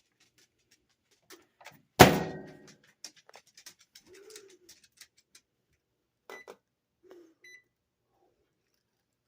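Microwave oven door shut with a loud thunk, followed by light clicks of handling and two short keypad beeps.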